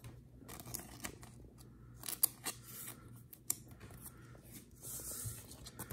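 A trading card being slid into a clear plastic card sleeve: faint, scattered rustles and sharp little clicks of plastic and card stock, the sharpest ones about two and three and a half seconds in.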